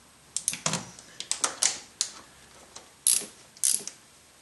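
Hand socket ratchet clicking in short, irregular runs of strokes, followed by two sharper metal clicks about three seconds in.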